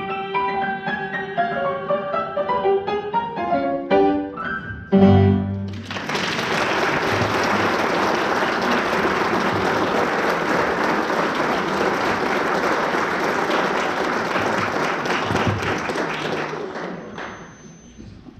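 Instrumental music ends on a loud final chord about five seconds in, and an audience applauds for about eleven seconds, the clapping dying away near the end.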